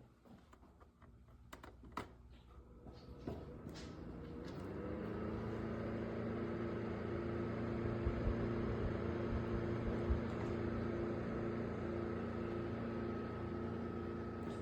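Portable evaporative air cooler's dual-motor fan: a few light clicks, then about four to five seconds in the fan spins up and runs steadily with an even hum and rushing air.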